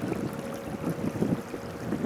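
Wind buffeting the microphone in irregular gusts, over the wash of small waves running up the wet sand.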